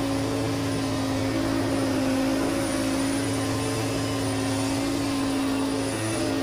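John Deere X570 lawn tractor's V-twin engine running steadily at working speed, driving its front-mounted snowblower, with a constant hum. The footage plays at double speed, so the drone sounds higher than in life.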